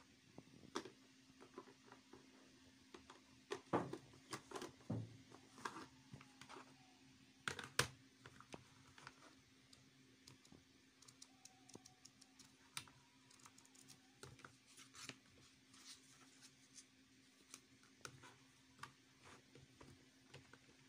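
Plastic sticker sleeves and sheets being handled and set into a clear plastic storage box: irregular small clicks, taps and rustles, loudest about four and eight seconds in, over a faint steady hum.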